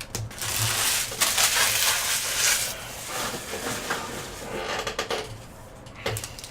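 Card-pack wrappers crinkling and rustling as they are handled, loudest for the first two and a half seconds, then quieter with a few light clicks.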